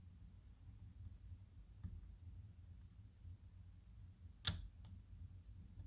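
A lock being picked with a hook pick: a few faint ticks of the pick against the pins, then one sharp metallic click about four and a half seconds in, followed by a fainter tick.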